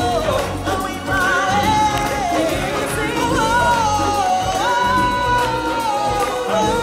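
Stage-show music over the theatre's sound system: a singer holds long notes that step up and down in pitch over a continuous backing band.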